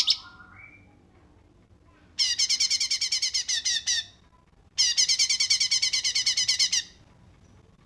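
A songbird giving two rapid trills of quickly repeated high, falling notes, about ten notes a second. Each trill lasts about two seconds, with a short pause between them.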